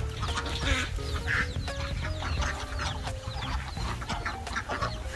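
Chickens clucking, with a cluster of louder squawks in the first second and a half, over background music with held notes.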